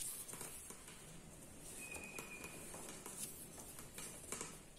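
Faint rustling, scraping and soft clicking of stiff wicker-style weaving strands being bent and tucked by hand into a basket border. A brief faint high tone sounds about two seconds in.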